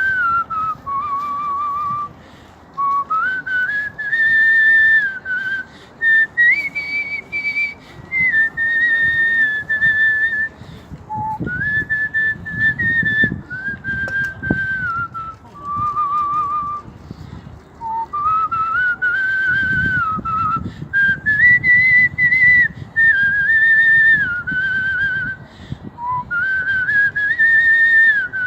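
A man whistling a melody with his lips: clear, high, pure notes held for a second or so each, stepping and sliding from pitch to pitch, with short breaks for breath.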